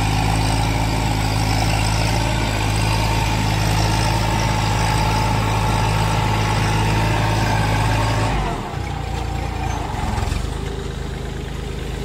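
Kubota B2441 compact tractor's three-cylinder diesel engine running steadily under load as it drives a rotavator tilling the soil between sugarcane rows. About eight seconds in, the steady drone changes and drops a little in level.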